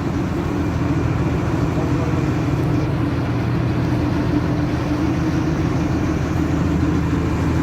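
Vishal 495 combine harvester's diesel engine running steadily at a constant speed, a deep even hum.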